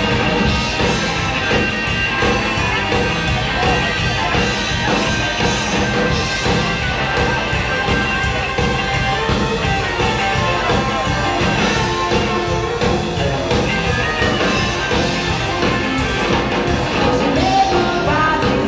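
Live rock and roll band playing: electric guitar and bass over a steady beat, with a woman singing at times.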